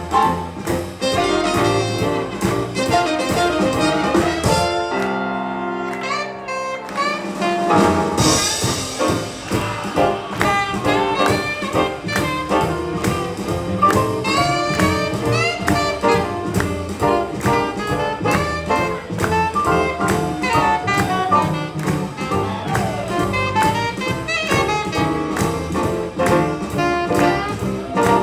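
Live swing jazz band with trumpet, saxophones, guitar, piano, double bass and drums playing a swing tune with a steady beat. About five seconds in the bass and drums drop out for a short break under a held chord, and the full band comes back in with a crash at about eight seconds.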